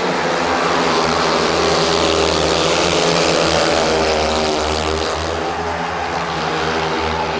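Several speedway motorcycles racing together, their 500 cc single-cylinder methanol engines running hard as a dense, overlapping engine noise that drops a little past the middle and then swells again.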